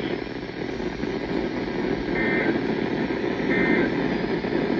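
EAS end-of-message data bursts: short warbling digital tones repeating about every second and a half, the third starting near the end, marking the close of the alert message. Under them runs a steady hiss and low hum from the received broadcast.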